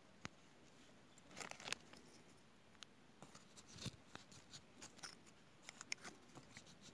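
Faint, scattered clicks and short scrapes of a wooden rammer pressing a wad down into a brass 36-gauge shotgun shell being hand-loaded.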